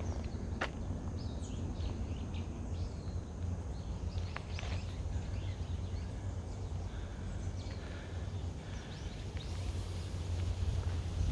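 Small birds chirping, many short calls scattered throughout, over a steady low rumble. A couple of footstep clicks fall in the first second.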